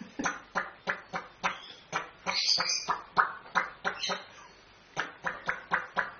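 African grey parrot making a quick series of short clicking sounds, about three a second, with a couple of slightly longer, higher calls in between.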